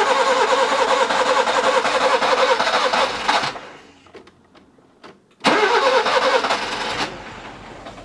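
Nissan Micra K11's four-cylinder petrol engine being cranked on the starter for about three and a half seconds, then cranked again about five seconds in, when it catches and keeps running more quietly after the starter lets go. The engine was flooded and is firing on leftover fuel with the fuel pump disabled.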